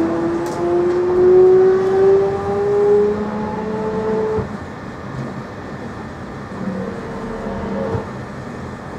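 Jubilee Line 1996 Tube Stock train's traction motors whining and slowly rising in pitch as the train accelerates, heard from inside the carriage over the steady rumble of wheels on track. The whine cuts off about four and a half seconds in as power comes off, and shorter motor tones sound again near the end.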